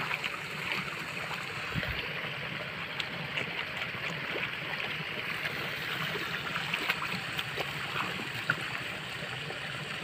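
Running water trickling and gurgling steadily, with small scattered clicks over it.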